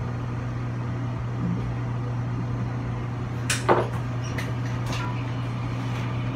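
Steady low hum inside the passenger car of a TRA Puyuma tilting express train (TEMU2000), with a short knock and clatter about three and a half seconds in and a couple of faint clicks after it.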